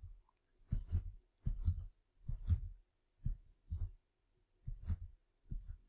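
Computer keyboard and mouse clicks, heard as about seven short dull knocks with gaps between: keys pressed and mouse buttons clicked while extruding vertices one after another.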